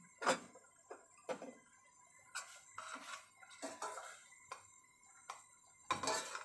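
A white spoon stirring boiling oats, clinking and scraping against the side of a stainless steel pot in about ten irregular knocks, the loudest just after the start.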